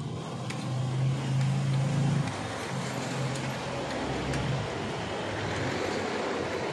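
A motor vehicle passing, its engine and road noise swelling about halfway through and fading near the end, with a few light clicks of spoons on plates.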